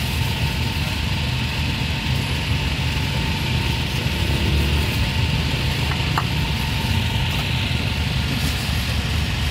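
A steady, unbroken low engine drone, like a motor running, with a constant hiss of background noise above it and one small click about six seconds in.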